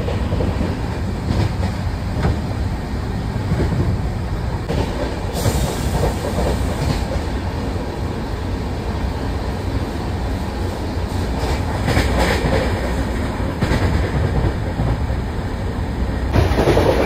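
Train running along the rails: a steady, loud rumble with occasional clacks, growing louder near the end.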